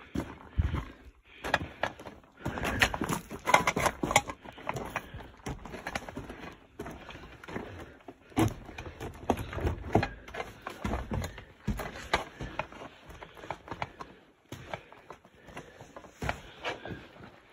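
Irregular crunching footsteps and knocks on loose rock rubble.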